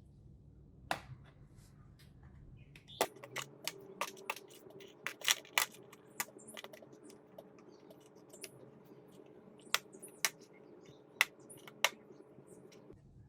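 Sharp plastic clicks and taps from handling a foldable magnetic chess set, its pieces and case knocking together: a quick run of them about three seconds in, then single clicks spaced out near the end.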